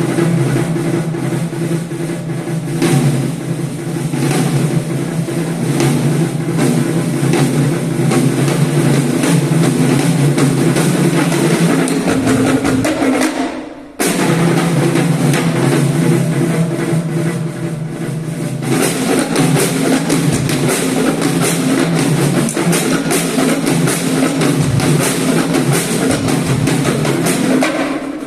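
Multipercussion trio playing fast, dense drum music, a continuous stream of rapid strokes on drums. About twelve seconds in it fades away briefly, then breaks back in loudly at about fourteen seconds.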